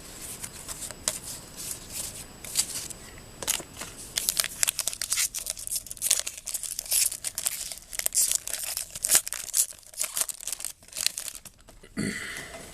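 Foil wrapper of a trading card pack being torn open and crinkled by hand: an irregular run of crackling and tearing rustles that grows busier a few seconds in.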